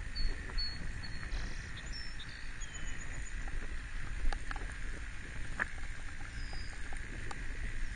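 Low wind rumble on a helmet-mounted camera's microphone while riding a recumbent trike on a paved path, with a few sharp clicks and ticks from the ride, one loudest about four seconds in.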